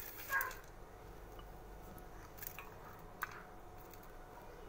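Quiet room tone with a few faint, brief clicks and rustles, the loudest just after the start.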